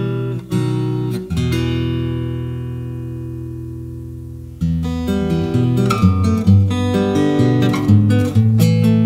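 Background music on acoustic guitar: plucked and strummed chords, one chord left ringing and fading for about three seconds before quicker picking resumes.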